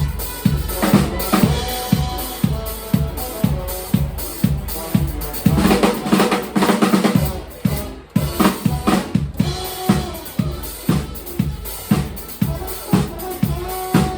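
Live band music led by a drum kit playing a steady beat of kick and snare under held chords. About six seconds in the kick drops out for a moment while a chord rings, then the beat comes back in.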